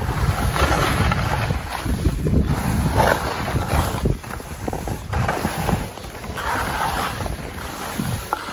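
Skis hissing and scraping over packed snow during a downhill run, the hiss swelling with each turn every couple of seconds, over a low rumble of wind on the microphone.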